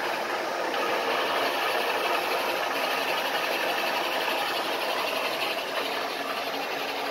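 Vertical milling machine running a boring tool around the inside of a ZIL truck brake drum, a steady machining noise as the drum's braking surface is bored out.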